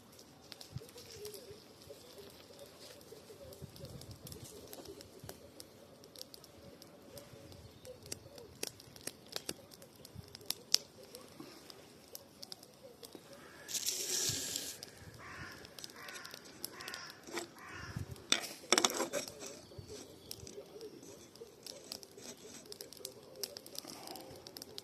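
Wood campfire crackling, with scattered sharp pops and snaps at irregular intervals.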